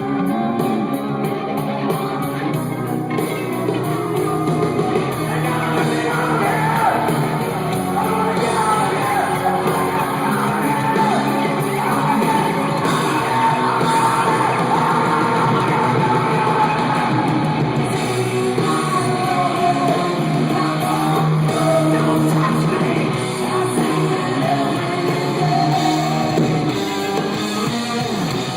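Live rock band playing, with a singer's voice over it, echoing in a large hall.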